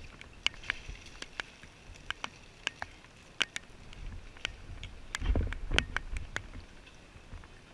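Scattered sharp clicks and taps close to a helmet-mounted camera, with a cluster of muffled bumps about five seconds in as the wearer moves and reaches for the hose.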